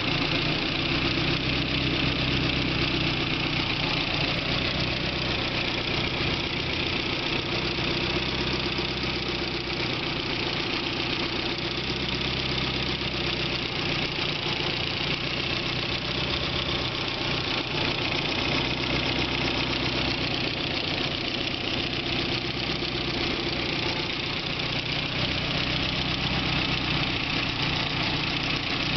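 BMW E30 M3's S14 four-cylinder engine idling steadily with a rapid ticking noise over the running sound.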